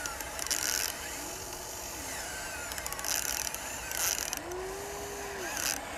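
Huina RC excavator's small electric motors and gearboxes working as the boom and bucket move: a whirring motor whine that rises, holds and falls twice, with four short rasping bursts of gear clatter between.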